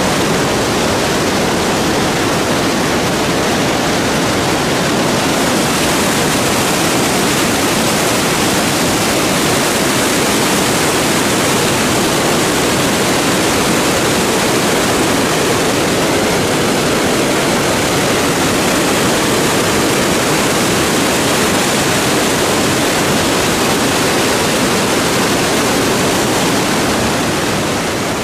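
Loud, steady rush of a waterfall, white water pouring down over rock.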